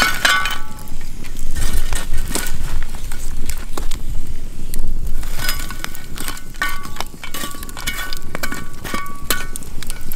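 Irregular clinks and knocks of metal on cast iron, some ringing briefly, as the cast-iron Dutch oven's lid goes on and hot coals are set under and on top of it. The clinks are thickest just after the start and through the second half.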